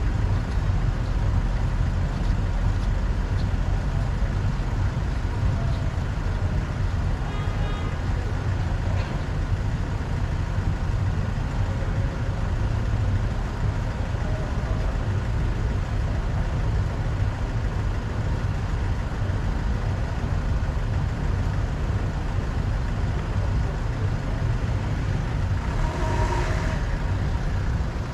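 Car driving slowly through city traffic on rain-wet streets: a steady low road-and-engine rumble under an even hiss of rain and wet tyres. A brief pitched sound stands out about a second long near the end.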